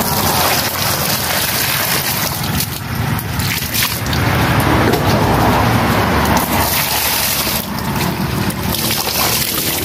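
A stream of water pours and splashes into a plastic basin of eels held in a plastic colander, filling the basin with a steady rushing, splashing sound.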